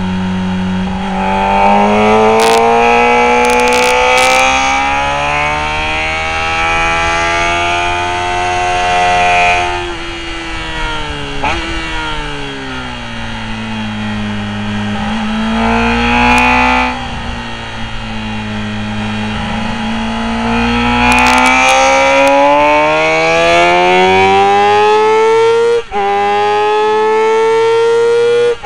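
Motorcycle engine heard from on the bike at racing speed. The revs rise and fall as it accelerates out of corners and backs off into them, climbing steadily over the last third, with two brief cuts near the end as it changes up a gear.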